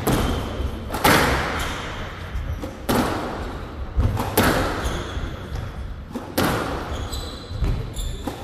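Squash ball struck by rackets and hitting the court walls during a rally: about six sharp hits, irregularly spaced, each with an echo.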